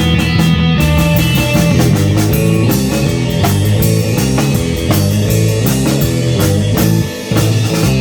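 A rock band playing an instrumental number on electric guitar and drum kit, with steady drum hits under the guitar line and a brief drop in level about seven seconds in.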